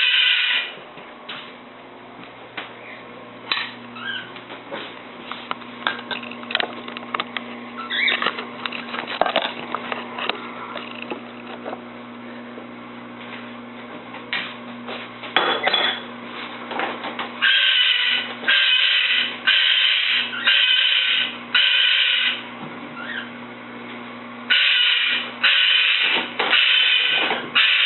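Umbrella cockatoo screaming: loud harsh screams repeated about once a second in two runs, the first starting about two-thirds of the way in. Before them, scattered short chirps and clicks over a steady low hum.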